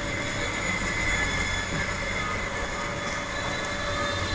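Steady street din with several constant high-pitched whines over it.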